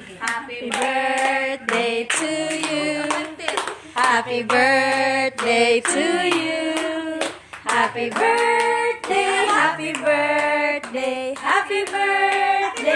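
People singing a birthday song to the cake, with hands clapping along.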